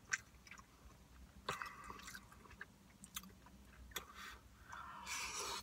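A person chewing a mouthful of curry and rice, faint, with a few sharp clicks scattered through it and a short breathy hiss near the end.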